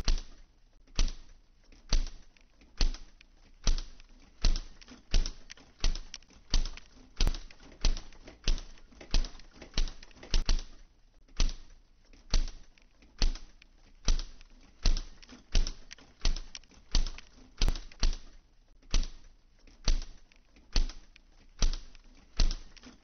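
A steady, rhythmic clacking: a sharp knock a little more than once a second, each with a short ringing tail. It is made with kitchen objects and laid in as the printing press's machine rhythm.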